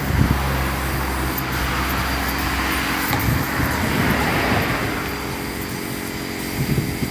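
Compressed-air spray gun hissing as wood finish is sprayed, over a steady low hum; the hiss swells in the middle and eases off about five seconds in.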